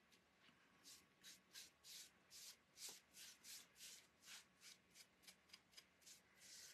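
Faint, quick strokes of a paintbrush spreading sealer over a bare wooden cutting board, about three strokes a second.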